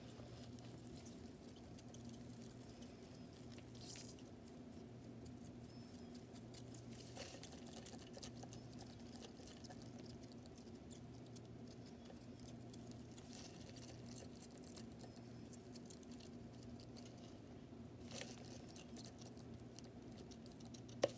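Faint scratching and light ticks against a clear plastic cup as a bearded dragon hunts crickets inside it, with a few sharper taps scattered through, over a low steady hum.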